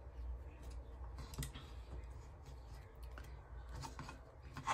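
Faint scattered clicks and rustles of thin floral wire being twisted by hand, with a slightly louder click near the end.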